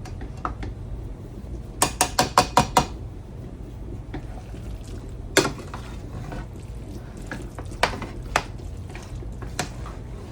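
A spoon clinking against a mixing bowl while potato salad is stirred: a quick run of about six taps about two seconds in, then a few single clinks.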